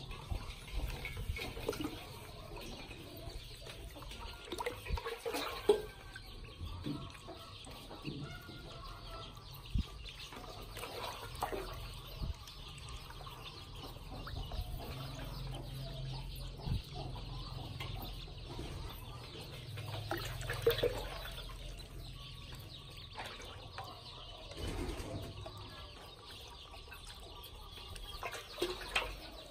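Ducklings peeping and paddling in shallow water in a metal basin, with small splashes and occasional sharp knocks, the loudest about six seconds in.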